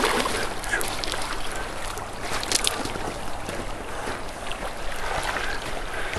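Steady rush of flowing river water with wind on the microphone, broken by a few brief splashes, about a second in and again around two and a half seconds in.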